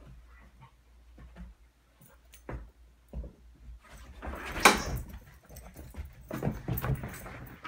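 Two small dogs playing rough on a giant stuffed teddy bear: scuffling and short knocks, with dog sounds, and one sharp, loud sound a little past halfway.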